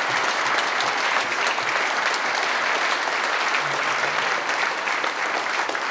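A large crowd clapping together, dense steady applause.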